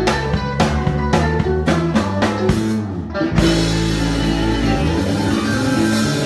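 Live rock band with drum kit and electric guitar playing a string of accented hits together, then about three seconds in crashing into a held final chord with a sustained cymbal wash and low bass notes.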